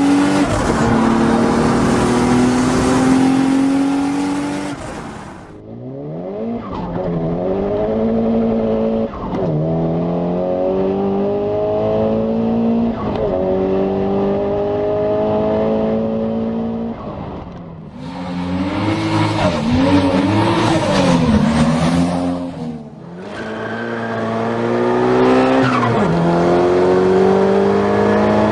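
Turbocharged cars accelerating hard through the gears, one after another. Each engine note climbs and then drops at every upshift, with turbo flutter as the throttle lifts for the shift.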